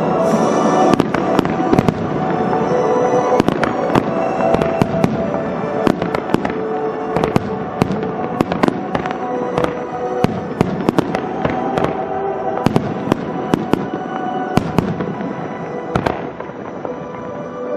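Aerial firework shells bursting in a rapid, irregular string of sharp bangs, several a second, over music played through loudspeakers.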